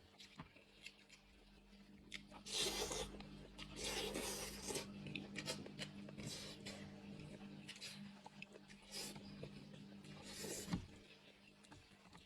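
Eating noises while working meat off a cooked five-spice lamb's head: several short, rough bursts, two close together a few seconds in and two more near the end, over a steady low hum.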